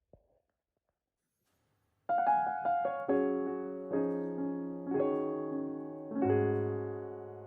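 Near silence, then about two seconds in, background piano music begins: gentle chords struck roughly once a second and left to ring, with a deep bass note added near the end.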